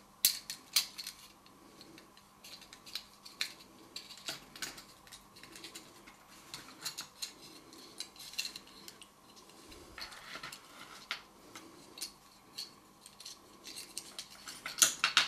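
Irregular small plastic clicks and snaps as the plastic housing of a quartz clock movement is pried apart by hand and its mechanism worked free, with louder clusters of clicks just after the start and again near the end.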